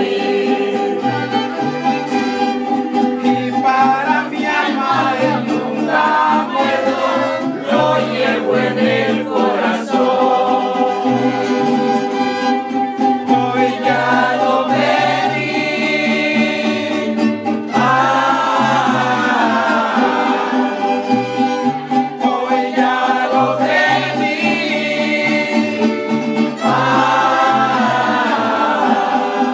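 Live acoustic group of violin and strummed guitars playing a song while men sing together over a steady rhythmic accompaniment.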